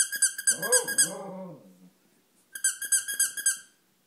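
A squeaky toy squeezed rapidly, about six or seven squeaks a second, in two quick runs. Under the end of the first run a dog lets out one falling howl lasting about a second and a half.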